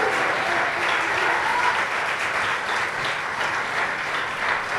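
Audience applauding after a song.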